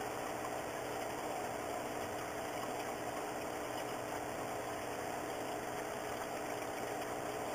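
Steady machine hum: a few fixed tones over an even hiss, unchanging throughout.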